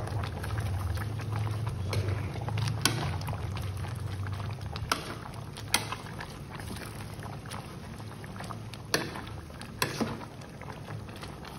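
Soup being stirred with a metal ladle in an aluminium pot: liquid sloshing over a low steady rumble, with about five sharp clinks of the ladle against the pot. The rumble fades about halfway through.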